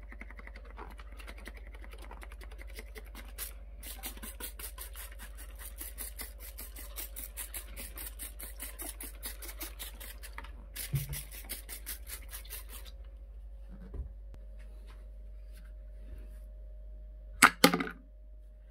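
Trigger spray bottle squeezed over and over in quick succession, each pull giving a short hiss of spray, in two runs of several seconds. Two loud knocks near the end.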